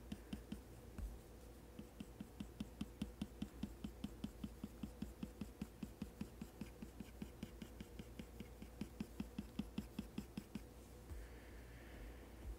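Apple Pencil tip tapping against an iPad Pro's matte screen protector in quick short strokes, about five faint taps a second, pausing briefly about a second in and stopping a couple of seconds before the end.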